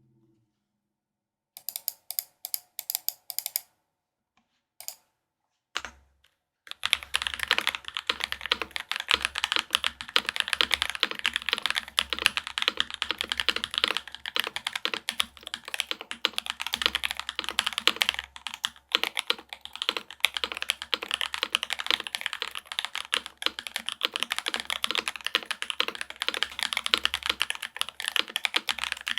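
Custom mechanical keyboard being typed on: a Rama U80-A with a gasket-mounted aluminium plate, factory hand-lubed Vertex V1 switches and GMK keycaps. A few scattered keystrokes come first, then from about a quarter of the way in fast, continuous typing.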